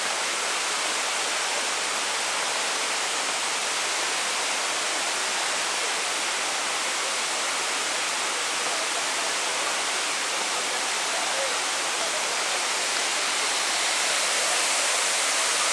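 Waterfall rushing: a steady hiss of falling water that grows a little louder near the end.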